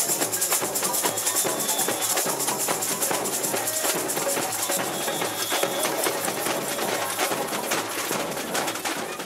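Samba-style percussion band playing a fast, steady rhythm on drums and shakers, beginning to fade out near the end.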